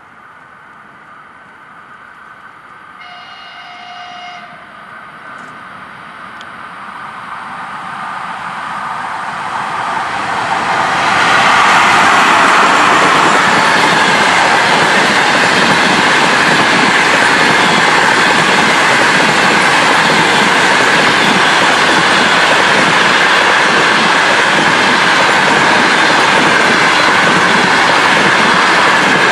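ChS4 electric locomotive hauling a passenger train: a short horn blast about three seconds in. Then the train's rolling noise grows louder as it approaches, and from about eleven seconds in its coaches pass close by with loud, steady wheel-on-rail noise.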